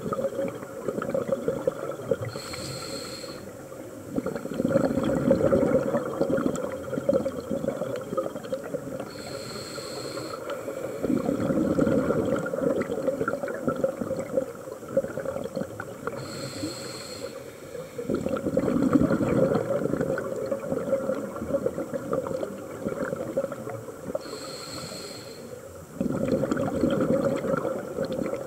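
Scuba diver breathing through a regulator underwater: four slow breaths, each a short hiss of inhaling through the demand valve followed by a longer rush of exhaled bubbles, about one breath every seven seconds.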